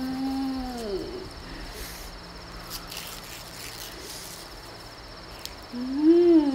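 A woman humming "mmm" with her mouth closed while eating an ice cream cone, the sound of savouring it. One long held hum falls away about a second in, and a louder rising-then-falling "mmm" comes near the end. A faint, steady high cricket-like trill runs underneath.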